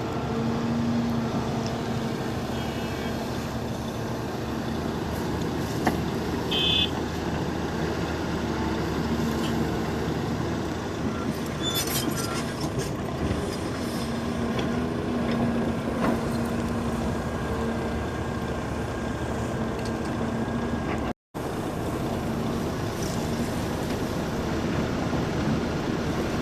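Heavy diesel engines of an excavator and tipper truck running steadily during loading, with a steady hum throughout. A few short knocks and clanks come about a quarter of the way in and again near the middle.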